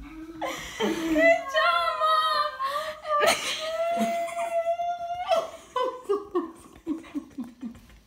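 High-pitched laughter: two long held squeals, then a quick run of short bursts in the second half.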